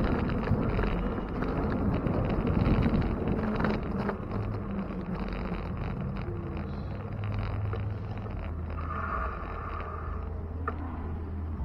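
Wind buffeting the microphone and road and traffic rumble while riding a bicycle on city streets, louder in the first few seconds and easing after about four seconds. A brief higher-pitched tone sounds about nine seconds in.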